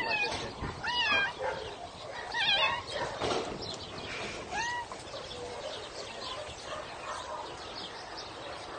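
A dog whining in short high-pitched whimpers, four of them in the first five seconds, the third wavering, then quiet rustling.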